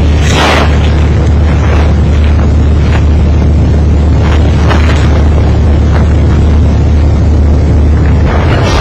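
A loud, steady low rumble with faint scattered clicks over it; the rumble drops away near the end.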